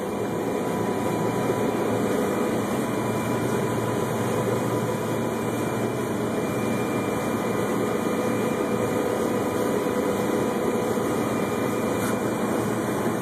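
John Deere 9670 STS combine running steadily while harvesting wheat, heard from inside the cab: an even engine and threshing hum with a few faint steady tones.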